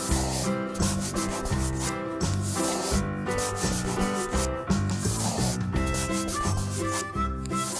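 Rapid rubbing strokes of coloring-in scribbled on paper, repeating with no let-up, over background music with a repeating bass line.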